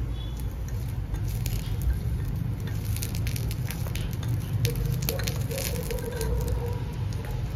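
Spinach leaves being stirred with a small metal spoon in a miniature clay pot over a tiny wood fire: irregular crackling and light scraping clicks over a steady low rumble.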